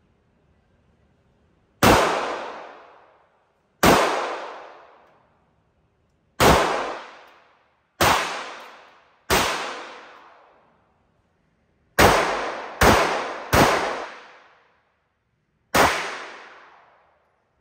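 Nine single 9mm handgun shots fired at an uneven pace, three of them in quick succession about two-thirds of the way through. Each bang rings on and fades away over about a second.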